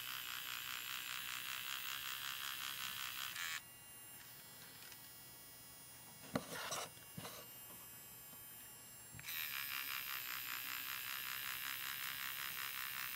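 3D Simo pen's filament-feed motor whirring with a rapid pulsing buzz as it pushes out plastic, stopping after about three and a half seconds. A couple of light knocks come in the pause, and the motor starts again about two-thirds of the way through.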